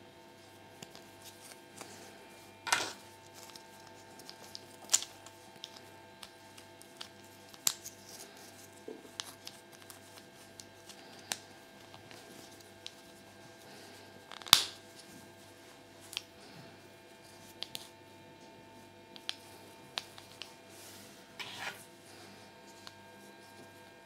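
Small plastic Kinder Surprise toy parts being handled and snapped together: scattered sharp clicks and taps, the loudest about halfway through, over a steady low hum.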